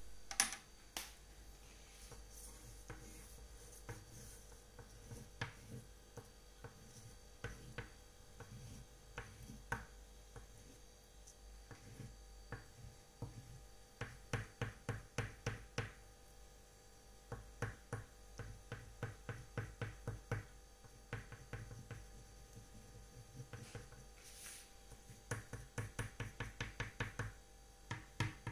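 Light taps and clicks in quick runs of about five a second, with scattered single taps between the runs, over a faint steady hum.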